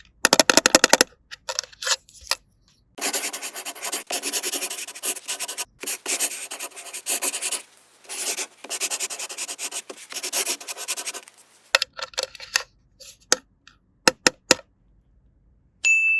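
Rubbing and scratching in quick, dense strokes, with a burst of rapid ticks at the start and scattered sharp clicks near the end.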